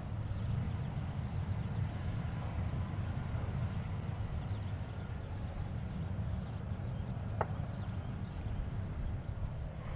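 Steady low rumble of a McDonnell Douglas MD-80-series jet airliner's engines at idle as it taxis, with one brief sharp sound about seven and a half seconds in.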